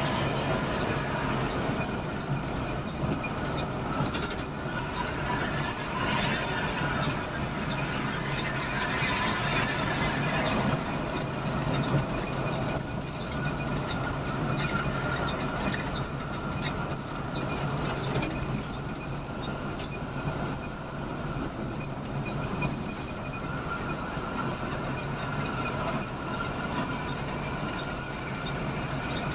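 Steady drone of a coach bus cruising at highway speed, heard inside the cabin at the front: engine hum mixed with tyre and road noise.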